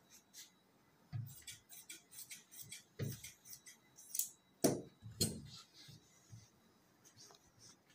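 Tailor's scissors cutting cloth: a run of sharp snips, several landing with a duller knock on the table, thinning out after about five and a half seconds.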